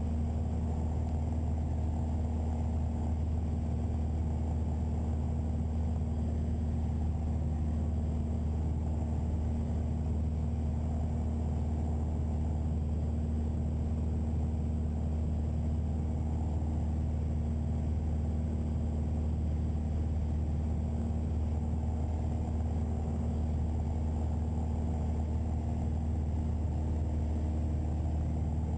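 Steady drone of a Piper PA-28-181 Archer's four-cylinder Lycoming engine and propeller at cruise power, heard inside the cabin. It holds a constant low hum with no change in pitch.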